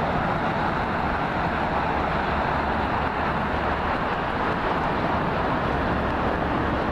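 Steady, unbroken rush of distant highway traffic.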